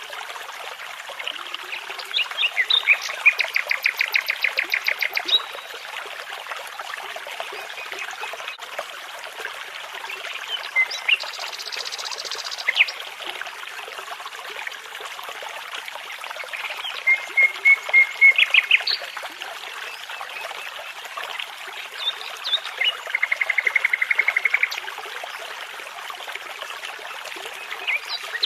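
Songbirds singing several separate phrases of rapid repeated trilled notes, with scattered single chirps between them, over the steady rush of a babbling brook.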